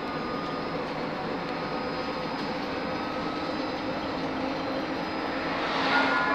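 Inside a Škoda 31Tr trolleybus on the move: the steady running noise of the electric drive and rolling wheels, with several faint steady whine tones over it. Near the end it briefly grows louder for about half a second.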